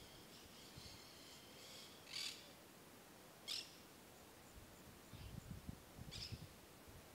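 Faint wild birds calling: a thin, high twittering at first, then three short, harsh calls about two, three and a half and six seconds in.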